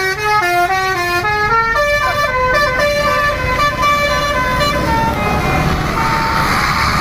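Tour bus's basuri (telolet) multi-tone horn playing a melody: a quick run of stepped notes, then slower notes, ending on a held note about five seconds in. The bus engine runs underneath and is left alone near the end.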